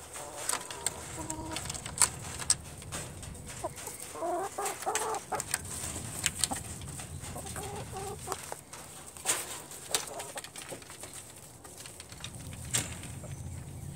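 ISA Brown hens clucking, in two runs of calls about four seconds in and again about eight seconds in, with scattered sharp knocks and clicks between them.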